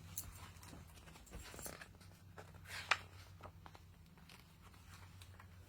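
Soft rustling and a few short crisp clicks of a picture book's pages being handled and turned, over a low steady hum.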